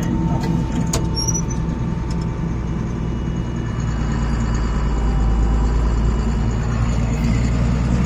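John Deere tractor's diesel engine running steadily under way, heard from inside the cab, getting a little louder about halfway through. A few light clicks sound in the first couple of seconds.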